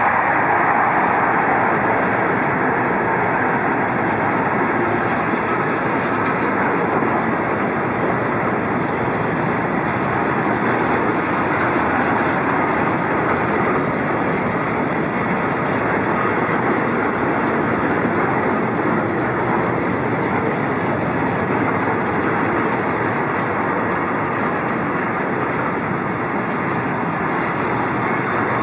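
Freight train of Uacns powder silo wagons rolling past close by, a steady, loud noise of wagon wheels running on the rails.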